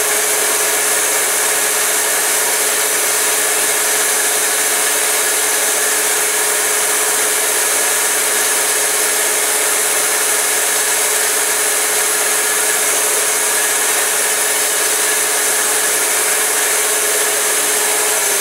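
Electric motor of a knife-sharpening machine running at a steady speed while a blade's curved edge is buffed and stropped to take off a remaining burr; the motor starts to wind down, its pitch falling, at the very end.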